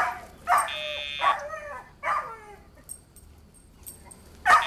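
Young Labrador whining and yipping: three or four short cries, each falling in pitch, in the first couple of seconds, then quieter.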